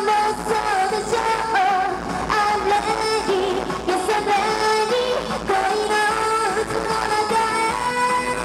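A woman singing live into a handheld microphone over musical accompaniment. Her melody moves in short phrases and settles into one long held note near the end.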